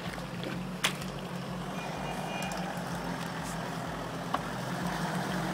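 Toyota Land Cruiser 4x4's engine running steadily under load as it crawls through deep mud, getting gradually louder as it comes closer. A sharp click about a second in.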